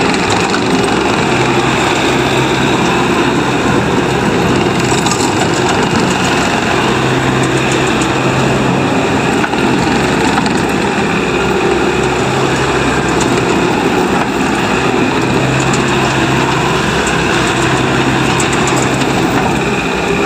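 Bobcat T650 skid steer loader's 74 hp diesel engine running steadily.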